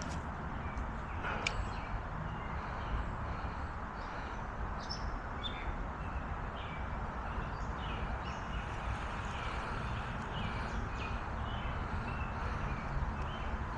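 Birds calling in repeated short chirps over a steady low rumble, with two sharp clicks near the start.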